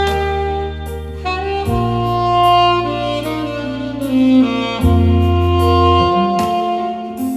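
Saxophone playing a slow melody of long held notes over a backing track with a bass line and light percussion.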